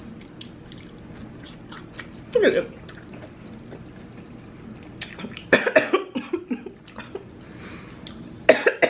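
A woman coughing while eating: one short cough about two seconds in, then a rapid fit of several coughs a little past halfway, and another burst near the end.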